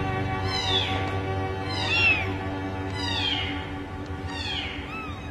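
A very young kitten mewing over and over, about once a second, each mew high and falling in pitch. Background music with sustained notes plays underneath.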